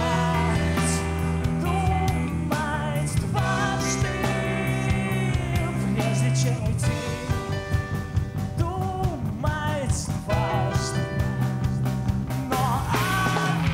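A rock band playing live: a full band with a steady beat and a wavering lead melody over it. The music swells near the end.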